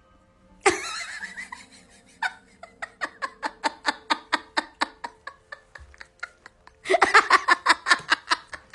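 A person laughing hard: a loud burst of laughter, then a long run of rhythmic 'ha-ha' pulses at about four a second, and another loud outburst near the end.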